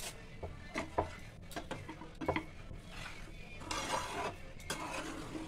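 Metal spatula stirring cooked vermicelli in a pan: scattered clicks and knocks of the spatula against the pan, with a longer scraping stretch about four seconds in.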